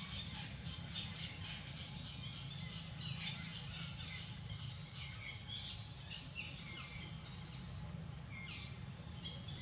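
Forest birds chirping, many short high calls overlapping throughout, over a steady low rumble.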